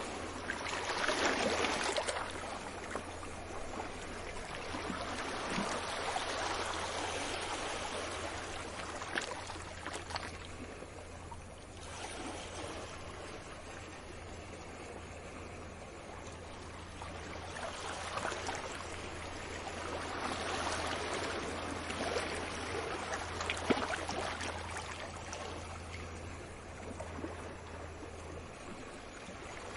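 Sea waves washing onto a beach, a continuous wash of surf that swells and fades every few seconds.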